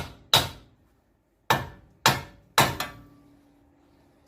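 A sledgehammer strikes the steering knuckle of a Dodge Ram 1500 five times to knock the upper ball joint stud loose from the knuckle. The last blow leaves a short metallic ring.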